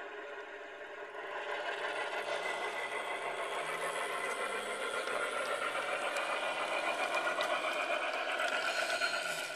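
Diesel engine sound from the onboard Phoenix sound system of a ride-on scale GE 23-ton switcher locomotive, running steadily as the locomotive moves along the track, swelling a little about a second in.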